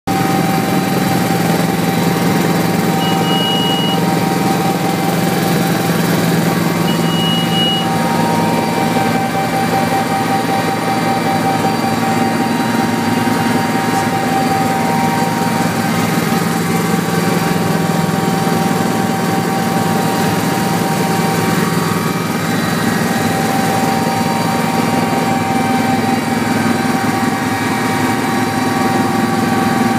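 Sikorsky S-76C+ helicopter in flight, heard from inside the cockpit: the steady drone of its twin Turbomeca Arriel turboshaft engines and rotor drive, with a steady whine over it. Two short high beeps sound about four seconds apart in the first several seconds.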